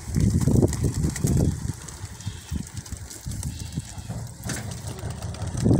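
A flock of racing pigeons flapping their wings as they take off from the opened crates of a transport truck, in irregular rumbling bursts.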